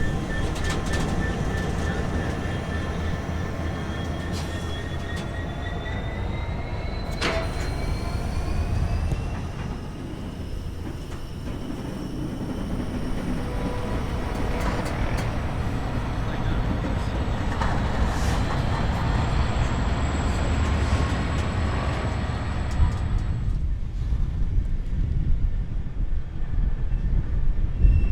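A modern passenger train pulling away through the station, with a whine that rises steadily in pitch as it gathers speed over a low rumble of the wheels.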